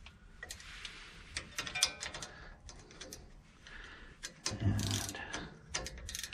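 Irregular light metallic clicks and taps of hand tools on a brake caliper as its bolts are run up snug.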